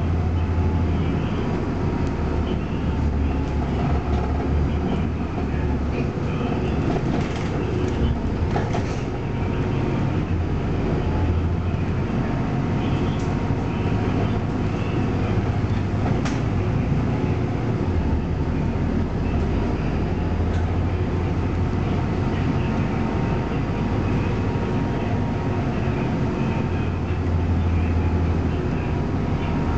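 Interior sound of a moving city bus: the engine and running gear give a steady low drone, with a faint steady high whine and a few brief clicks from the cabin.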